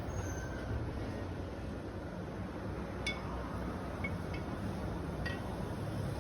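A few light metallic clinks over a steady low hum: one about three seconds in, two just after four seconds, and one a little after five seconds.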